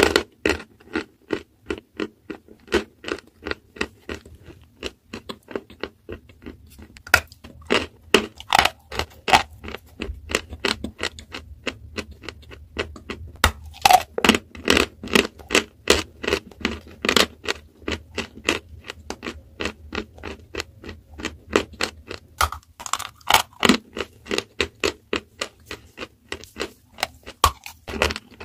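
Close-miked chewing and crunching of a chunk of dry white chalk: rapid crisp cracks and gritty crunches as it is bitten and ground between the teeth.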